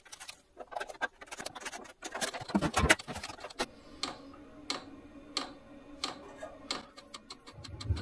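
Vevor diesel heater starting up: from about four seconds in, a regular tick about every 0.7 s, typical of its fuel dosing pump, over a faint fan hum. The hum swells deeper near the end. Scattered clicks and knocks come in the first three seconds.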